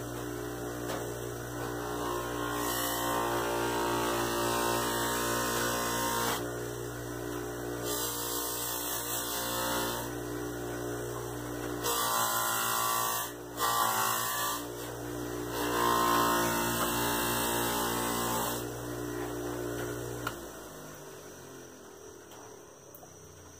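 A small bench buffer motor runs with a steady hum while a leather sheath is held against its buffing wheel, which adds a rubbing hiss that comes and goes in stretches. About 20 seconds in the motor cuts out and winds down, its pitch sliding lower as it slows.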